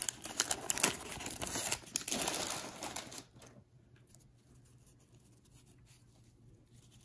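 Waxed-paper trading-card pack wrapper crinkling and tearing as a pack is opened, in a dense crackle over the first three seconds, then near quiet.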